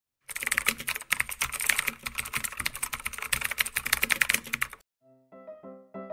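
Rapid computer-keyboard typing, a dense clatter of key clicks that stops suddenly after about four and a half seconds. A simple piano-like melody of evenly spaced notes starts near the end.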